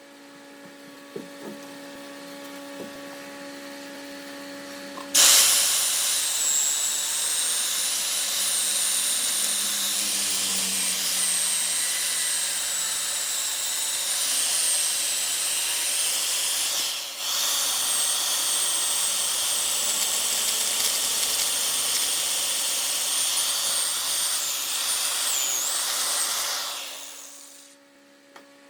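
Wood lathe turning a log. A quiet steady motor hum comes first; about five seconds in, a tool bites into the spinning wood with a sudden loud, steady hiss carrying a faint wavering high whine. The cut breaks off briefly once and fades out near the end.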